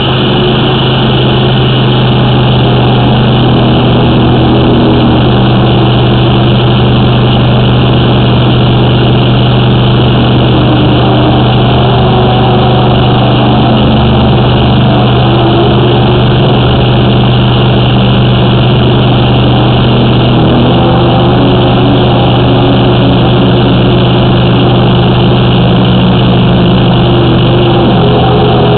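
High-pressure drain jetter engine running steadily at full load, a loud constant hum with its overtones, while the water jet works in the sewer pipe.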